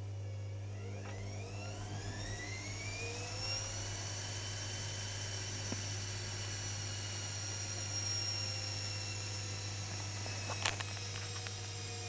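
Privileg washing machine's drum motor speeding up during the boil-wash rinse: a whine rising in pitch over about three seconds, then holding steady and high, with a few sharp clicks near the end. The owner finds this rinse very odd.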